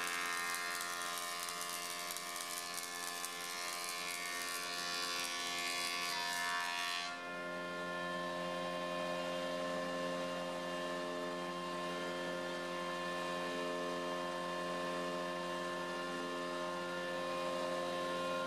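Conveyor drum sander running: a hardwood board passing under the abrasive drum gives a hissing grind for about the first seven seconds, then it stops suddenly as the board clears the drum and only the machine's steady hum remains.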